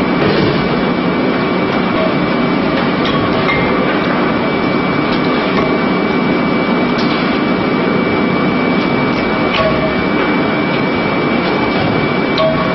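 Rendering plant machinery running steadily: a loud, even mechanical din with a high steady whine and occasional sharp clanks.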